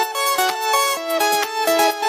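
Background music: a quick, even melody of pitched notes, about four a second.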